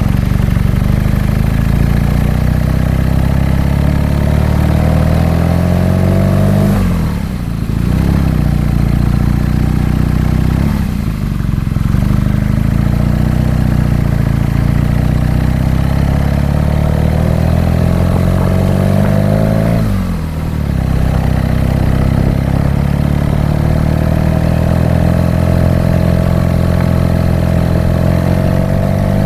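BMW R nineT's 1170 cc boxer twin engine pulling hard under acceleration. The revs climb steadily, then drop sharply at each upshift: three times, and a fourth as the sound ends.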